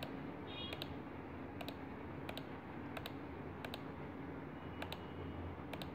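Computer mouse button clicking about seven times, roughly once a second, each click a quick press and release. It is the fill tool being applied to one section of a drawing after another, over a faint low hum.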